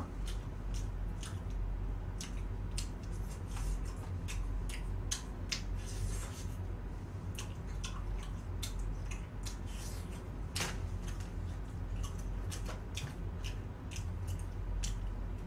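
Close-miked chewing and crunching of crispy fried chicken, many short sharp crackles coming irregularly, over a low steady hum.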